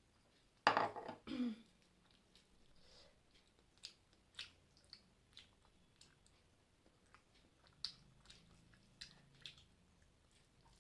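A person chewing a mouthful of rice and curry, with wet mouth clicks and smacks. There is a louder, short rush of noise about a second in.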